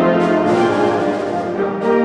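Live concert band playing a march: brass and woodwinds sounding full sustained chords, with light percussion strokes marking the beat.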